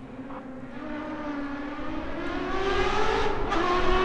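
Ferrari F136 V8 of a Subaru rally car accelerating hard on its way in, the engine note climbing in pitch and growing louder, with a quick upshift about three and a half seconds in.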